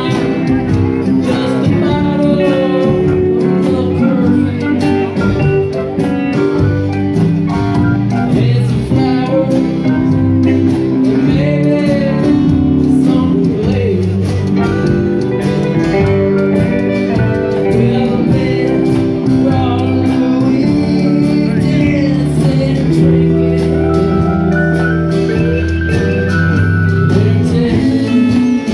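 Live band playing a song with electric and acoustic guitars, drums and keyboard, with a voice singing over it.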